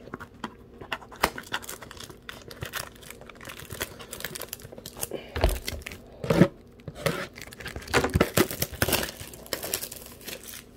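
Plastic shrink-wrap being torn and crinkled off a sealed trading-card blaster box: an irregular run of crackles and rips, with the loudest rips a little past the halfway mark.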